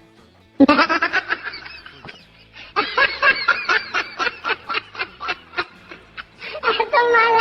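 A person laughing hard: a long run of rapid, repeated ha-ha pulses, starting about half a second in.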